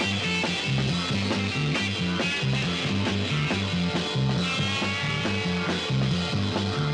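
Psychedelic rock music, with a driving repeated bass riff and a steady drum beat.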